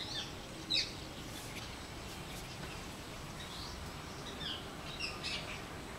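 Wild birds chirping: short, high-pitched calls here and there, one near the start and several in the second half, over a faint steady background.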